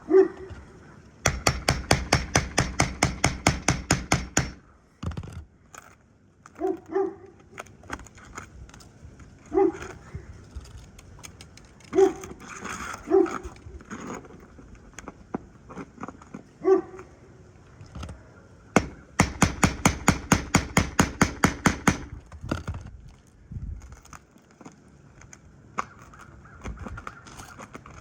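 A dog barking in short single barks every few seconds. Twice, a rapid run of sharp clicks at about five a second goes on for roughly three seconds; these runs are the loudest sounds.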